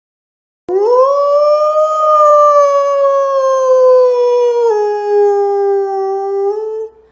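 A dog howling: one long howl of about six seconds that jumps up in pitch at the start, then slowly sinks, with a step down partway through and a short lift just before it stops.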